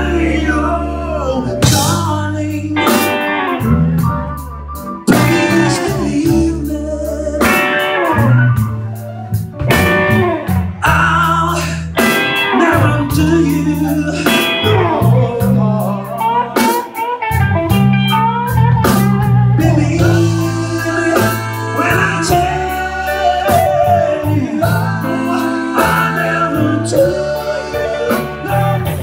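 Live blues-rock band playing: a male lead singer over electric guitar, electric bass, keyboard and a drum kit.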